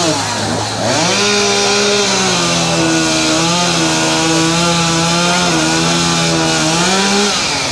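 Two-stroke chainsaw running at high revs while cutting through the end of an obstacle-race log. Its pitch dips and climbs back up about half a second in, holds steady through the cut, and falls off near the end.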